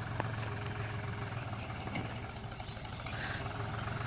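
Deutz-Fahr Agrolux 50 tractor's diesel engine running as a low, steady hum while it pulls a trolley loaded with straw.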